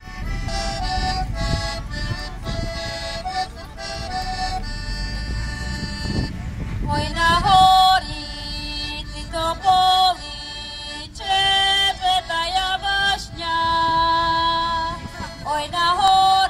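Accordion playing a tune through outdoor loudspeakers: short, rhythmic repeated chords at first, then from about halfway a melody of longer held notes that slide into pitch.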